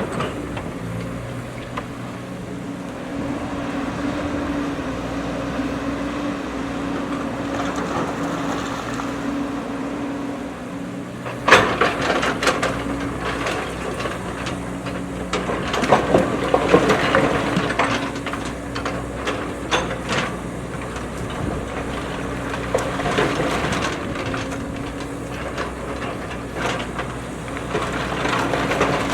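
JCB backhoe loader's diesel engine running steadily. A loud bang comes about eleven seconds in, followed by several seconds of clanking and scraping.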